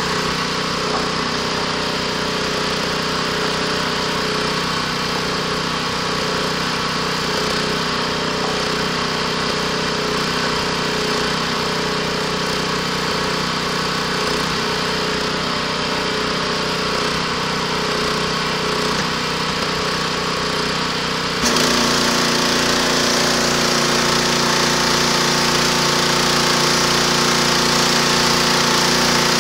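Gas-engine pressure washer running steadily. About 21 seconds in, the sound suddenly steps up louder, with a hiss of spraying water added.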